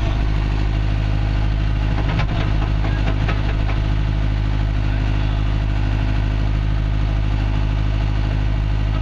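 Cat D6K2 dozer's diesel engine idling steadily, heard from inside the cab, with a few light clicks about two to three seconds in.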